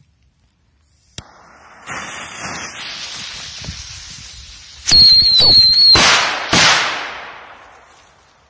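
Two Grand Mouse ground fireworks ("mice") burning: a hissing spray begins about a second in, with a faint wavering whistle. Loud, high shrill whistles follow about five seconds in. A loud burst of hissing near 6.5 s then fades away.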